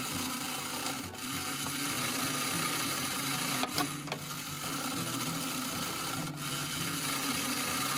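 Toy claw machine running: its small motors whir steadily as the claw moves, with a few short clicks along the way.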